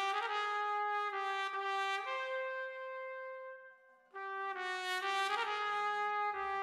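Solo trumpet playing a slow melody: a run of short notes, one long held higher note about two seconds in, a brief break just before four seconds, then the melody resumes.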